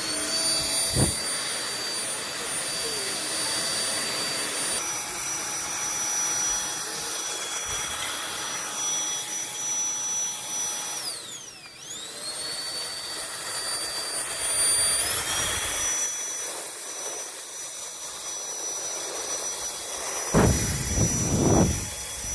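DEENKEE cordless stick vacuum's motor spinning up with a high whine and running steadily. About halfway through it winds down and spins straight back up, and a few seconds later the whine steps up in pitch as it moves up to the deeper-suction setting.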